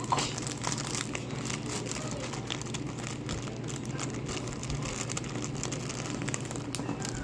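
Glitter slime being squished and stretched by hand: a steady stream of small crackling clicks and wet squishes.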